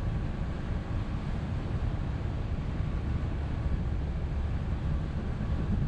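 Steady low rumble and wind noise of a motorboat underway.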